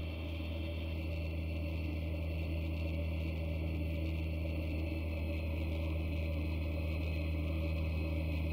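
Steady, unchanging drone of a single-engine turboprop in cruise flight, a low hum with a hiss over it.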